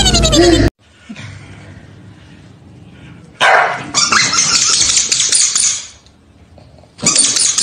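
Corgis barking at each other in two loud spells, the first lasting a couple of seconds, the second starting near the end.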